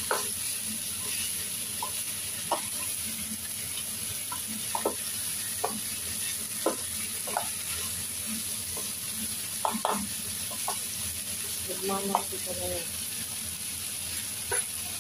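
Beef cubes and sliced onions sizzling steadily in a nonstick frying pan as they brown, with scattered sharp clicks and scrapes of a utensil against the pan as they are stirred.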